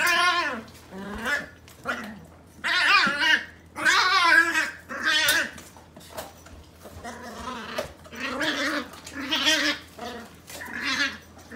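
Bluetick beagle puppy making a string of loud, wavering growl-yowls while play-fighting, about a dozen short calls with brief gaps between them. An odd, warbling play-growl that sounds like a Tasmanian devil.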